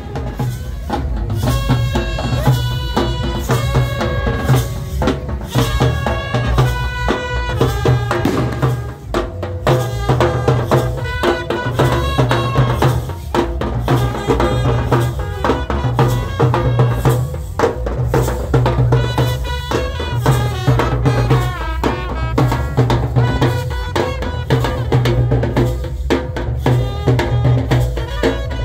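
Street brass band playing: trumpets carry a melody in held notes over a steady, driving beat of bass drum and side drums.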